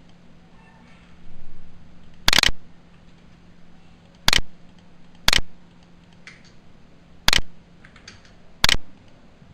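Computer mouse clicks: five sharp, loud clicks at irregular intervals, with a few fainter ticks in between.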